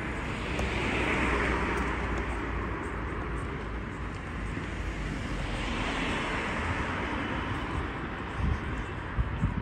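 Road traffic: cars passing on the road alongside, with tyre noise swelling up about a second in and again around six seconds, over a steady low rumble. Two short thumps near the end.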